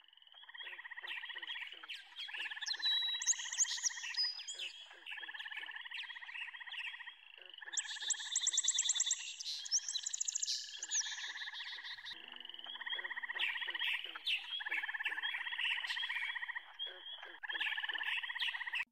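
A chorus of frogs calling: overlapping rapid trills, each lasting a second or two, repeating one after another, with a burst of higher chirping about eight seconds in.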